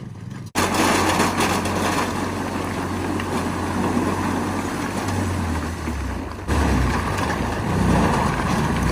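A truck engine running close by, a loud steady rumble that cuts in suddenly about half a second in and dips briefly near the end.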